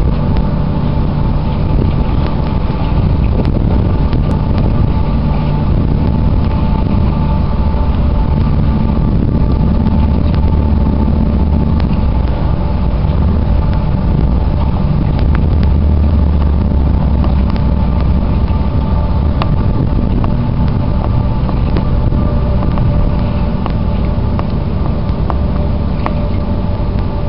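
Steady low engine rumble with a faint, even whine above it.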